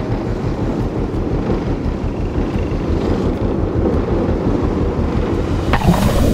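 Wind buffeting the microphone over the steady low rumble of a sportfishing boat's engines, with a short sharp noise near the end.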